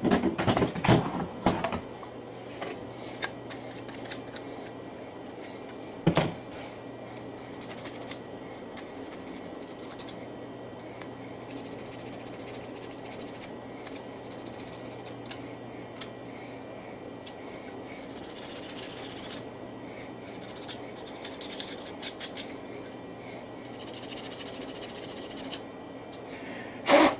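Small hand work on a bench: handling clicks and knocks, then on-and-off high scraping or snipping sounds, over a low steady hum.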